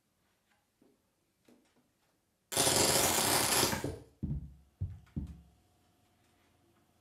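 Free-improvised noise music: a few faint clicks, then a loud rushing hiss about two and a half seconds in that lasts a second and a half. Three shorter bursts follow, each fading away, then a faint steady tone.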